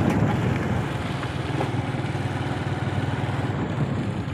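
Motor vehicle engine running at a steady road speed, a low even throb, easing off slightly about a second in.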